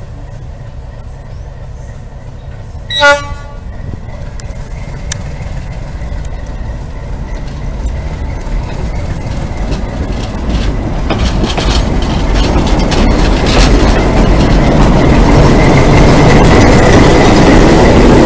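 A single short toot of the Alco RS8 diesel locomotive's horn about three seconds in, then the train approaching and passing close: wheels clicking over the rail joints and the locomotive's running growing steadily louder toward the end.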